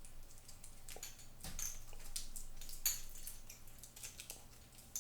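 Scattered light clicks and short rustles of a stainless steel watch bracelet being handled as its tag and red protective strap are taken off.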